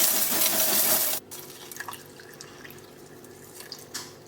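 Water running, cut off abruptly about a second in, followed by a few faint light clicks and knocks.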